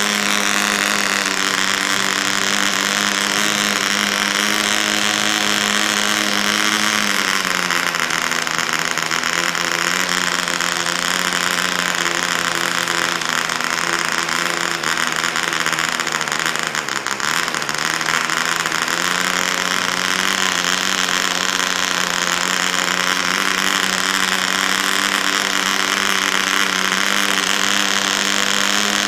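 PAW 55 model diesel, a tiny two-stroke compression-ignition engine of 0.55 cc, running at high revs on a test bench while being run in. Its speed drops about seven seconds in, sags further around seventeen seconds, then picks back up near twenty seconds and runs steady.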